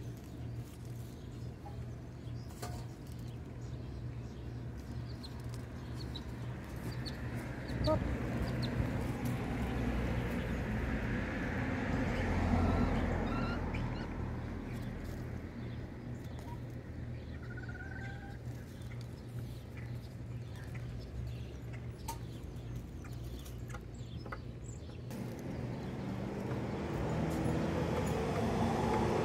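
Backyard hens clucking softly now and then while they forage, with scattered scratches and pecks in dry litter, over a steady low hum.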